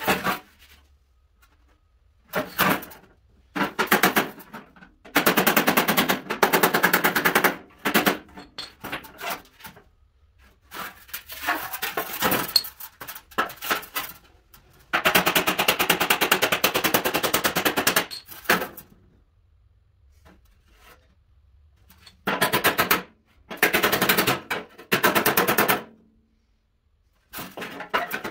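Rapid hand-hammer blows on the steel sheet of a rusty car fender, body hammer against a dolly, straightening out dents. The blows come in quick runs of many strikes, from under a second to about three seconds long, with short pauses between them.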